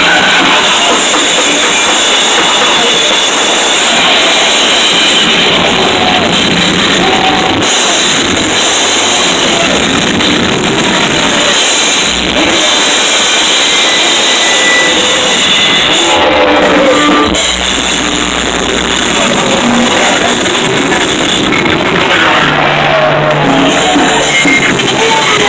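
Loud live noise music: a dense, steady wall of heavily distorted electric guitar noise that fills the whole range, with hardly a let-up.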